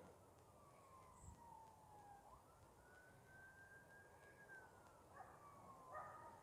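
Faint emergency-vehicle siren in a slow wail, rising in pitch, holding, then falling away. A few short sharp sounds break in near the end.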